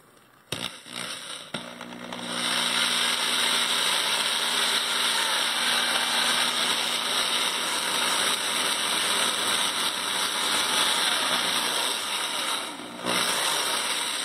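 Electric drill spinning a steel-wool-wrapped rod inside the metal seat of a Graco SG2 airless spray gun to scour out old paint: a steady motor hum with steel wool scrubbing against metal. It spins up about two seconds in, drops off briefly near the end, runs again, then stops.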